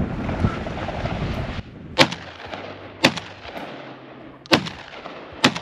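Shotgun fired at flushing chukar: four sharp reports over about three and a half seconds, the first two the loudest. Before them, heavy wind buffets the microphone.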